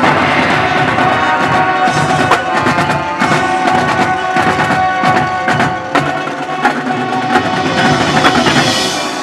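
Marching band playing: held chords from brass and winds over drums and struck percussion.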